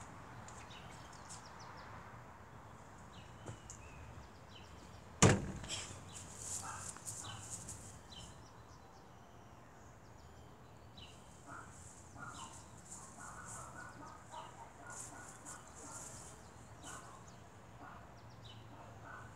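Faint outdoor ambience with small birds chirping on and off, and one sharp click or knock about five seconds in.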